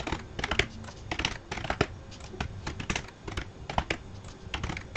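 Computer keyboard being typed on: an irregular run of short, sharp key taps as numbers are entered into a software settings dialog.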